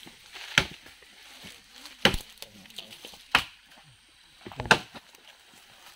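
Sharp chopping strokes at a steady pace, about one every one and a third seconds.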